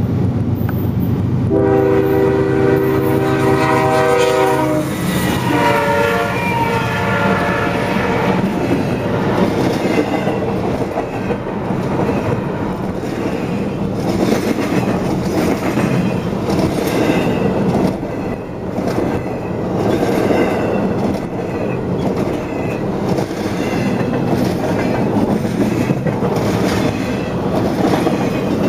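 Diesel locomotive air horn on a CSX intermodal train sounds one long blast and then a shorter one. The train's cars follow, rolling past with a steady rumble and repeated clickety-clack of wheels over rail joints.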